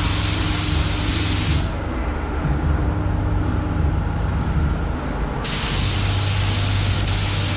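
Paint spray gun hissing as sealer is sprayed on a car in a light dust coat. One burst stops about a second and a half in, and after a pause of about four seconds a second burst runs to the end. A steady low hum runs underneath.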